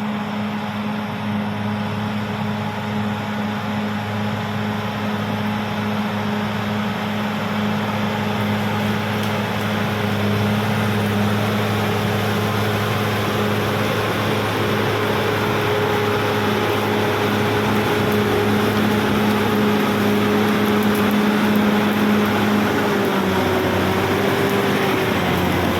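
Caterpillar D6R XL bulldozer's diesel engine running at a steady note; near the end its pitch drops and wavers.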